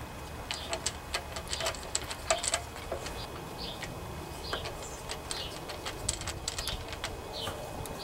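Ratchet wrench clicking in irregular runs, with small taps of metal tools, as the starter solenoid's mounting bolts are run down.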